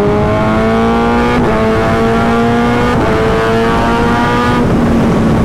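Kawasaki Ninja ZX-10R inline-four with an SC Project S1 aftermarket exhaust, accelerating while riding. Its pitch climbs steadily through each gear, with upshifts about a second and a half and three seconds in, and the throttle eases off near the end.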